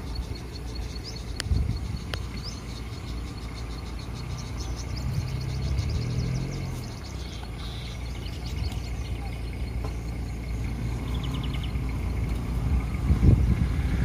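Car engines idling with a steady low rumble, growing louder near the end, with faint high chirping in the background.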